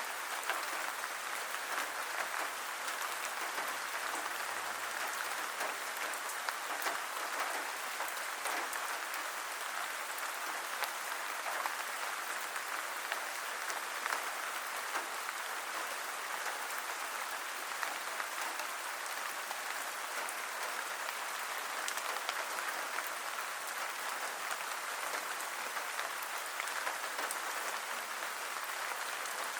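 Steady rain falling: a dense, even patter with scattered sharper drop hits throughout.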